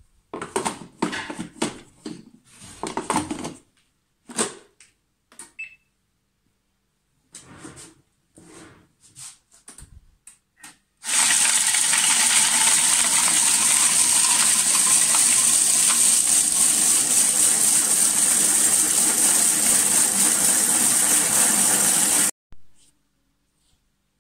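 A few seconds of clattering and knocks as dry eggshells and the bowl lid are handled, then a Thermomix blade grinding the dried eggshells to powder at high speed: a loud, steady grinding that runs about eleven seconds and stops abruptly.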